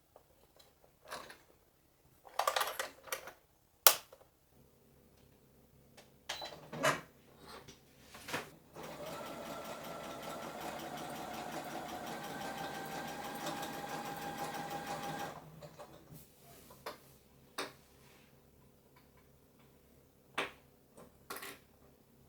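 A small electric motor runs steadily for about six seconds, its pitch creeping slightly upward, then stops. Light clicks and knocks of objects being handled come before and after it.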